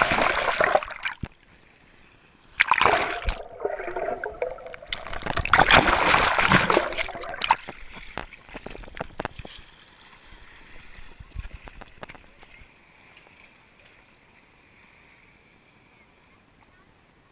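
Water splashing and sloshing around a GoPro housing held at and just under the sea surface, in several loud bursts over the first seven seconds, then settling into a faint, steady wash.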